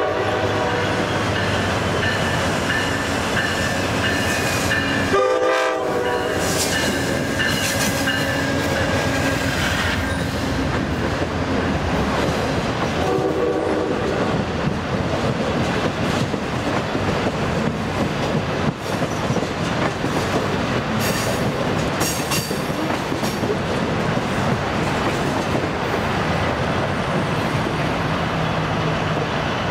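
Amtrak Capitol Corridor passenger train departing and rolling past close by, with a steady rumble and clatter of wheels over the track. Its horn sounds two chorded blasts, about 5 and 13 seconds in, and a thin high wheel squeal rings for a few seconds early on.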